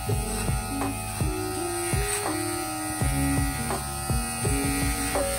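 Kemei KM-2002 battery hair clipper running with a steady electric buzz while trimming hair at the side of the head.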